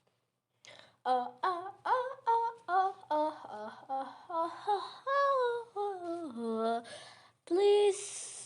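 A girl's unprocessed voice sings a wordless tune in short separate notes, sliding up and down in pitch. It starts after about a second of silence.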